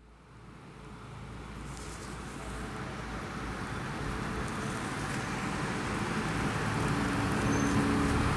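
A steady rushing background noise, fading in from silence and growing gradually louder, with a faint hum running through it.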